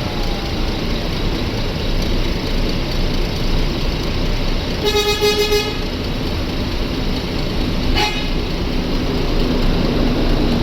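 A bus horn sounds once, in a single steady-pitched blast of just under a second about five seconds in, over steady engine and road noise. A short sharp sound follows near eight seconds.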